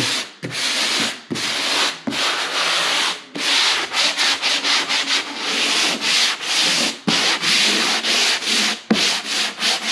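Hand sanding block rubbing back and forth over dried drywall joint compound, a run of scratchy strokes that become shorter and quicker about three seconds in. This is the light sanding of the first coat of mud before the second coat goes on.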